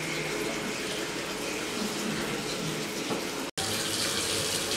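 Water running from a chrome single-lever mixer tap into a ceramic washbasin, a steady splashing stream. The sound cuts out for an instant about three and a half seconds in, then carries on.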